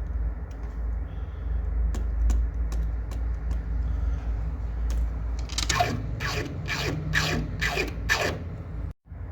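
Six quick scraping strokes, about two a second, each sliding down in pitch, over a steady low hum, with a few light clicks before them.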